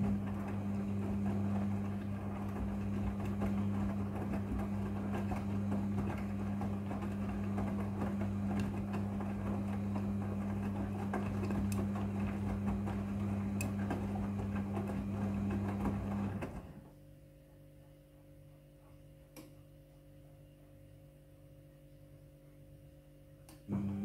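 Midea front-loading washing machine on its wash cycle: the drum motor hums steadily while the clothes tumble and slosh inside. About 16 seconds in the motor stops and the drum pauses, leaving it quiet for several seconds, then the hum and tumbling start again near the end.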